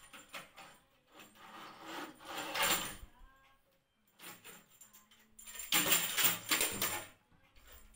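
A handheld baby rattle jingling in short bursts as a toddler shakes it, with the loudest bursts about two seconds in and again around six seconds.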